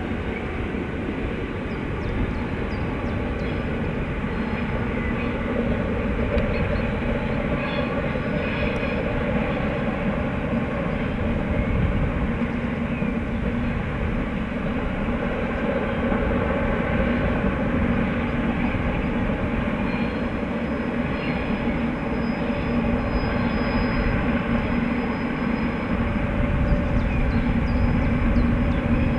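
Freight train hauled by DR V100 (BR 112) diesel-hydraulic locomotives passing at a distance: a steady rumble of engines and rolling wagons, with a low engine note that grows a little louder toward the end.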